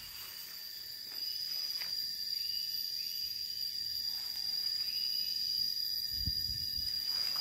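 Steady, high-pitched drone of insects such as crickets, with a soft low thump about six seconds in.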